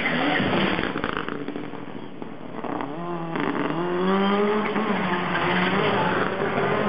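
Rallycross car's engine at racing speed on track. The sound eases off about two seconds in, then the revs climb twice in quick succession as the car accelerates, and the engine runs hard to the end.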